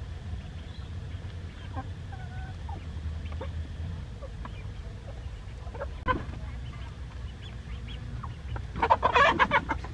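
Chickens clucking softly and pecking at scattered rice among feeding dogs, over a steady low hum, with a brief burst of loud rapid squawking near the end.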